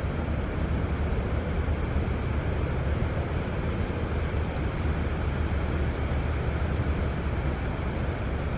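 Steady outdoor background rumble, weighted low, with no distinct events.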